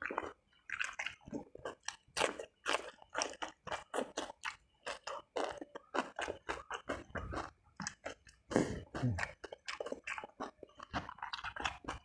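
Chewing with wet mouth smacks and crunching as a man eats spicy meatballs and raw bok choy leaves by hand, in quick irregular clicks. Near nine seconds in comes a brief low hum-like sound from the mouth or throat.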